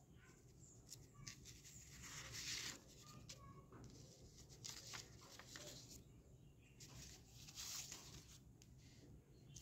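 Faint rustling of old paper banknotes being handled and shifted on a pile, in a few soft bursts, the strongest about two seconds in.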